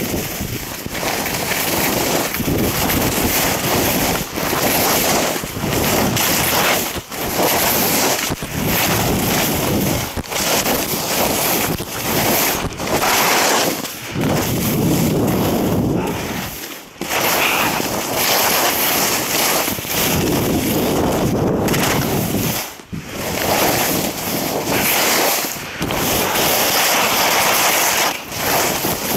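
Rushing wind battering the camera microphone during a fast ski descent, with a few brief lulls, mixed with the hiss and scrape of skis on packed snow.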